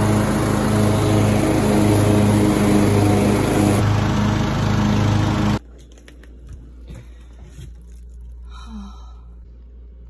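Lawn mower engine running loud and steady with a slight pulsing throb. It cuts off abruptly a little over halfway through, leaving only faint rustling and handling sounds.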